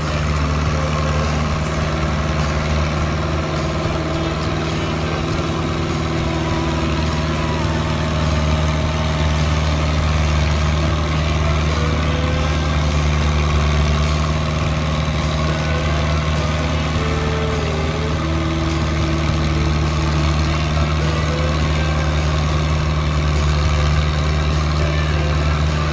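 Fiat 80-66 DT tractor's four-cylinder diesel engine running steadily while ploughing a paddy field.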